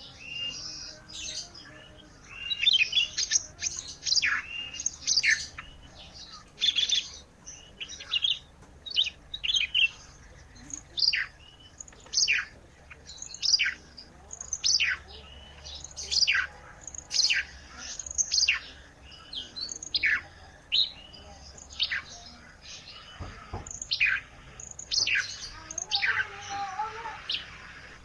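A 'ranting' songbird singing energetically and without pause, a steady string of sharp, high notes that each sweep quickly downward, about one or two a second.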